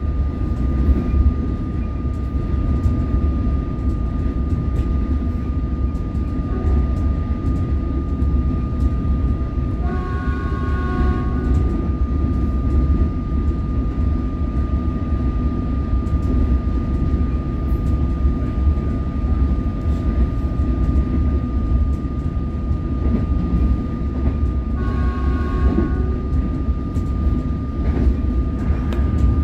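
Alstom Comeng electric suburban train running, heard inside the passenger carriage: a steady low rumble with a constant high whine over it. A short pitched tone sounds twice, about fifteen seconds apart.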